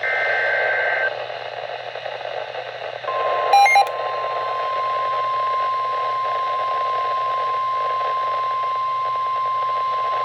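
The last of the NOAA Weather Radio SAME header data bursts, a shrill two-tone warble lasting about a second, then radio hiss. About three seconds in, the steady 1050 Hz weather-radio warning alarm tone begins and holds, with a brief cluster of electronic beeps just after it starts. This is the alert that opens the next warning broadcast.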